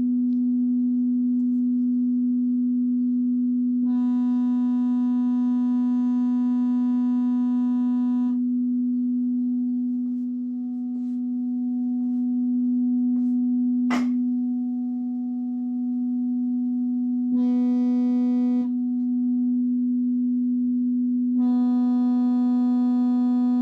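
A steady low test tone played through a Medion 65-inch TV's speaker. Three times it turns harsh and buzzy with a crackle: for about four seconds from roughly 4 s in, briefly around 17 to 18 s, and again from about 21 s on. This is the crackling distortion the TV's speaker makes on the tone. There is a single sharp click about 14 s in.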